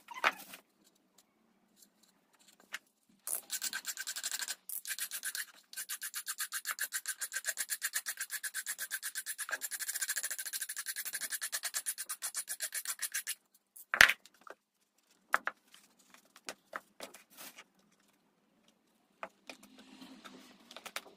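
Rapid, even back-and-forth scraping on the bare post of a cat scratching post, running for about ten seconds with a short break near the start. A single sharp click follows about fourteen seconds in, then a few light knocks.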